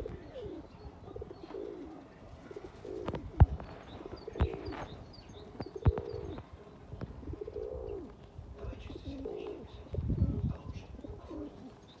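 Feral pigeons cooing over and over, each coo a low call that rises and falls. A few sharp knocks and faint high chirps come in among the coos.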